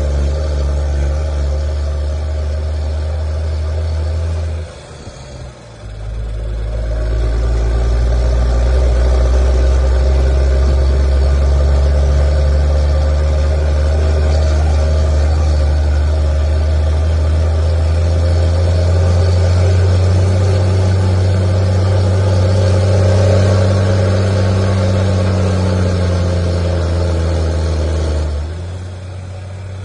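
Truck engine rumbling under held revs. The revs drop away about five seconds in, come back up and stay high, rising a little past the middle, then fall back near the end.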